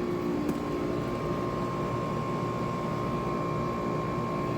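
2016 Trane XR 5-ton two-stage central air conditioner's outdoor condensing unit running steadily in cooling: an even hum with a couple of faint steady tones over it. Super quiet, which the owner puts down to its two-stage operation.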